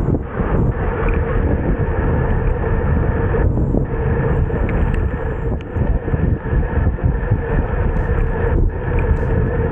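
Wind rushing over the microphone of a camera on a road bicycle moving at speed, a steady rumble with a faint constant hum in it.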